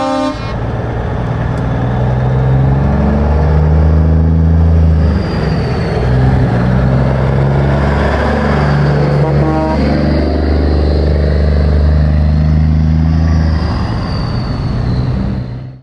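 Diesel engine of a Peterbilt conventional truck pulling away under load, its note rising through each gear and dropping back at the shifts, about three times. An air horn blast ends about half a second in, and there is a brief second toot near the middle.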